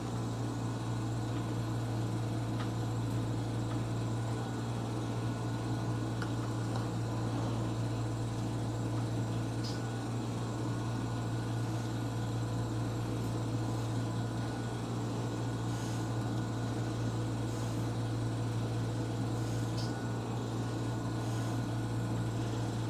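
Steady low hum with an even hiss from a running machine, unchanging throughout, with a few faint light taps.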